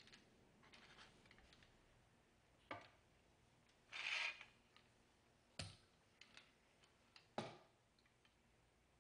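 Quiet handling of a wooden carriage on ball bearings against an aluminum angle rail while the rail support assembly is tested: a few light clicks and knocks, and a brief rub about four seconds in.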